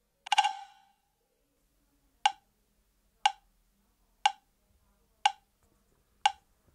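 Audio-latency test signal played through Blitzwolf BW-ANC5 Bluetooth headphones: one longer ringing beep, then sharp short clicks exactly once a second.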